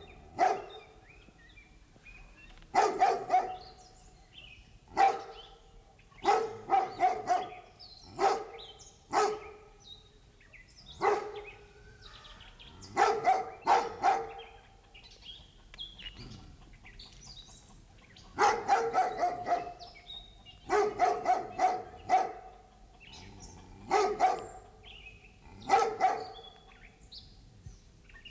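Large dog barking: deep, loud barks in irregular bursts of one to four, with pauses of a second or more between groups.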